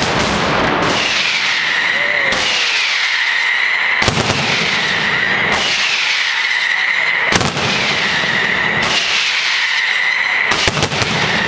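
Mascletà firecrackers going off in a dense, continuous barrage of bangs. A whistling tone recurs about every one and a half seconds, dropping slightly in pitch and then holding.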